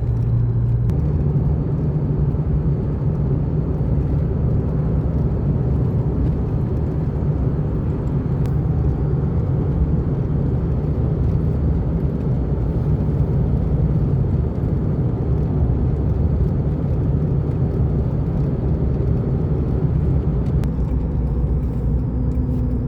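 Inside a moving car: a steady low rumble of engine and road noise.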